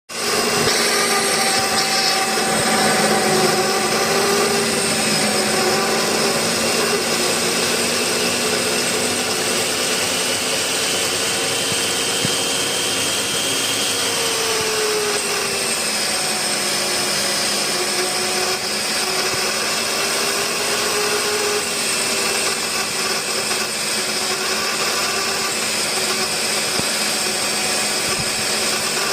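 Magnetic-base drill running as it bores through an iron plate: a steady motor whine whose pitch wavers slightly under load.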